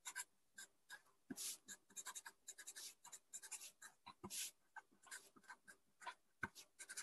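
Marker pen writing on paper: a run of short, faint strokes as capital letters are printed.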